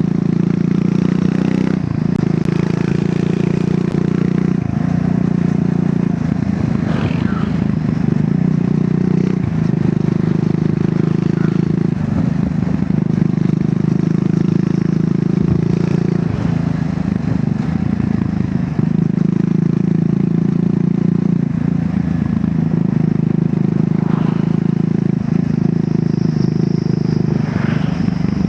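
Triumph Scrambler 400 X's single-cylinder engine through its stock exhaust, running under way. The engine note dips and picks up again every few seconds as the rider rolls the throttle on and off and changes speed.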